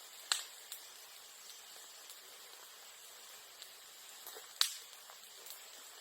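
Bonfire of bamboo and bamboo grass burning with a steady hiss and crackle, with two sharp pops, one about a third of a second in and a louder one about four and a half seconds in, and a few lighter ticks between.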